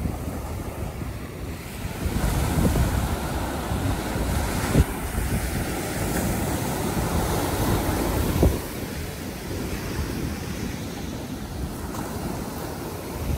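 Ocean surf breaking and washing up the sand, with wind rumbling on the microphone. Two brief thumps stand out, about five and eight and a half seconds in.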